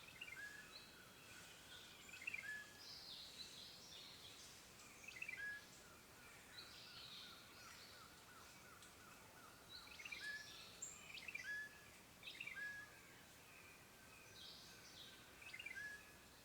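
Several songbirds singing in a forest: short whistled notes, quick trills and higher warbling phrases come again every few seconds, with a run of rapid repeated notes in the middle, over a faint steady hiss.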